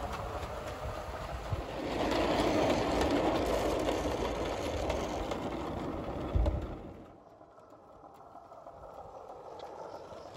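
Garden-railway model diesel locomotive and wagons running along the track: a steady running rumble with light clicks from the wheels. A thump comes a little past the middle, after which the sound drops off.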